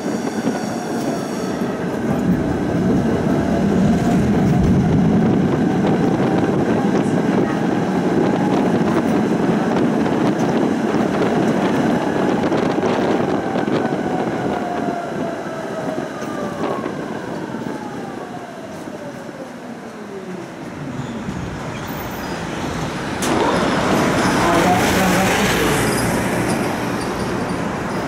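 Tram running, its motor whine falling steadily in pitch as it slows to a stop about three quarters of the way through. A loud rushing hiss follows near the end.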